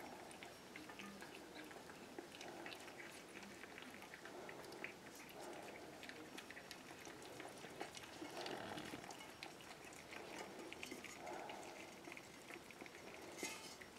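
Cockapoo puppies eating from a shared food bowl: faint, continuous smacking and chewing with many small clicks.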